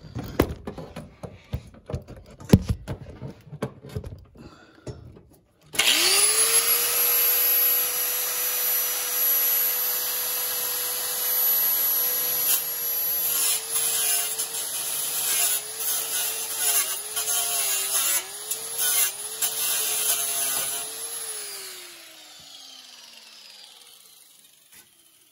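A few knocks and clicks, then about six seconds in a grinder spins up and runs with a steady high whine, its pitch dipping again and again as it bears into the steel to cut off the last tack weld holding a sheet-metal panel. It then winds down with a falling whine.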